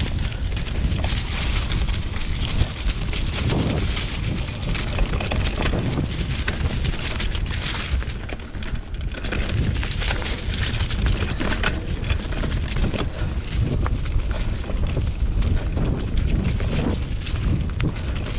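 2020 Specialized Pitch mountain bike rolling downhill on a dirt trail covered in dry leaves: the tyres crackle over leaves and rocks, and the bike rattles with many small clicks. Wind rumbles on the camera microphone.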